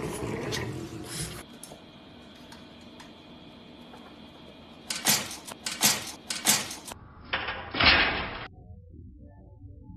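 A French bulldog growling briefly at the start. After a quiet stretch comes a run of sharp knocks and clatters, the loudest near the end.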